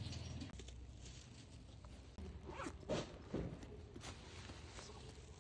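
Faint rustling and scraping close to the microphone: four short scratchy strokes between about two and a half seconds in and near the end.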